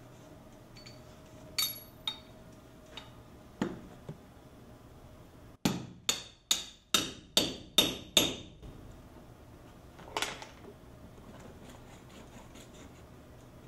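Hammer striking a metal core-sampling tool into a wall to take a core sample for asbestos testing: a few scattered knocks, then a quick run of about seven sharp blows, two or three a second, and one more knock near the end.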